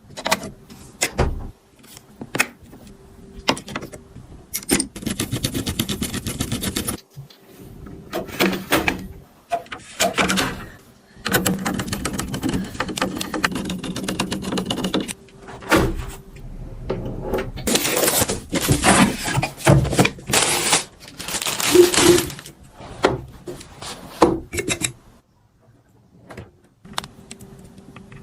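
Runs of rapid, irregular clicking and clattering, with short quieter gaps in between.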